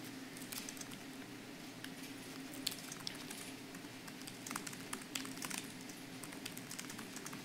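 Faint, irregular clicks of typing on a laptop keyboard, thickest a little past halfway, over a low steady room hum.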